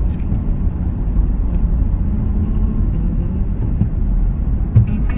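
Steady low rumble of a car on the move, engine and road noise as picked up by an in-car dashcam, with a faint high whine and a single thump near the end.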